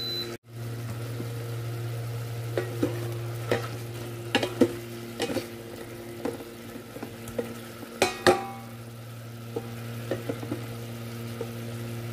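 Wooden spatula stirring and turning beef chunks in a stainless steel Instant Pot inner pot, with a scatter of short knocks and scrapes against the pot, loudest a little past two-thirds of the way through, over the steady sizzle of the meat browning and a low steady hum.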